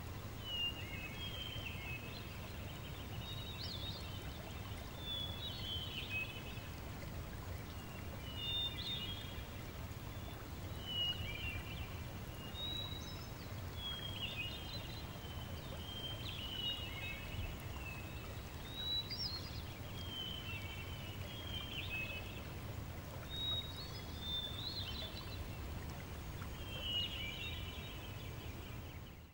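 Songbirds chirping in short, twittering phrases about every two seconds over a steady low rush of running water: a stream-and-birdsong nature ambience.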